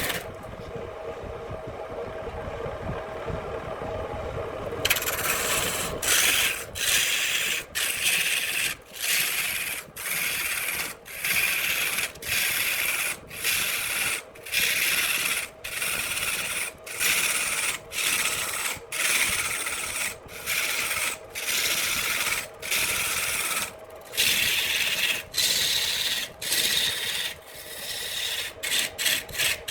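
Steady hum for about the first five seconds, then a hand tool worked back and forth on wood in regular rasping strokes, roughly one a second with brief breaks between them.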